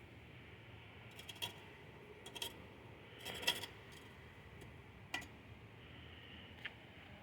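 A few scattered light clicks and scuffs, spaced irregularly, over a faint steady low background hum.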